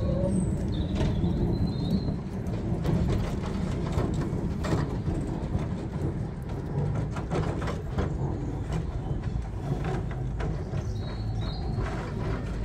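Amsterdam tram 474 running slowly past on street track: a low rumble with repeated clicks and knocks from the wheels on the rails.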